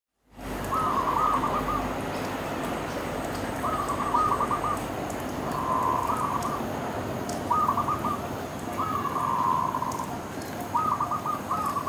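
A dove cooing in short phrases of several notes each, repeated six times a second or two apart, over a steady background hiss.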